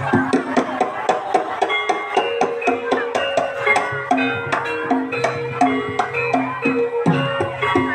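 Javanese traditional ensemble music of the kind that accompanies kuda lumping dance: quick, dense hand-drum strokes over held, ringing metallophone notes.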